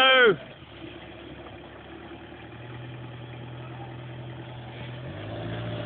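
Toyota Hilux engine running steadily at low revs as the truck sits stuck in a mud hole, its note growing louder about five seconds in. A shout cuts off right at the start.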